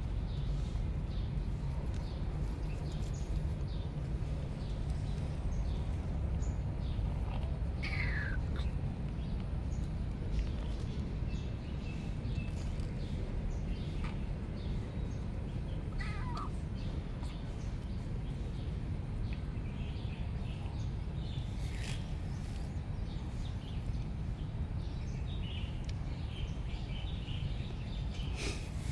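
Outdoor ambience with a steady low rumble, scattered faint ticks, and two short falling animal calls, one about eight seconds in and one about sixteen seconds in.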